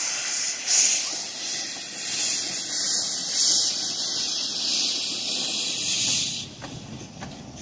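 Narrow-gauge steam locomotive Urskog hissing loudly as it vents steam low at its cylinders, in uneven surges, cutting off abruptly about six and a half seconds in. After that only the quieter rumble of the carriages rolling over the crossing remains, with a few faint clicks.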